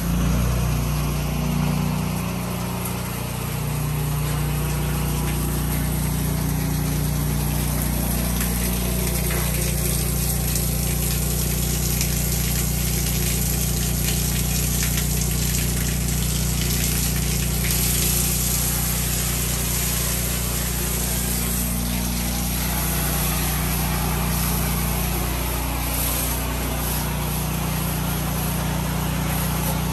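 Truck-mounted pressure washer running with a steady low hum, under the steady hiss of the high-pressure water jet from the wand as it sprays a concrete porch and a screen door.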